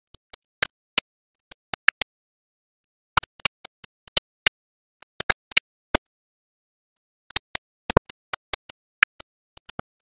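Automatic TE pin insertion machine driving pins into a printed circuit board: sharp, irregular clicks in three clusters.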